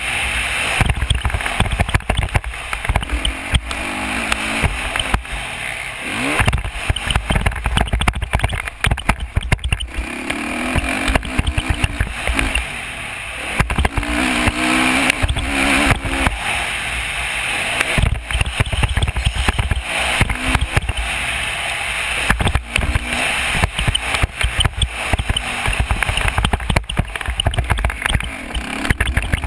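Dirt bike engine revving up and down as it is ridden hard, with heavy wind buffeting on a helmet-mounted microphone.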